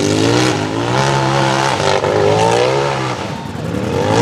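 Race UTV engine revving hard, its pitch climbing and dropping several times.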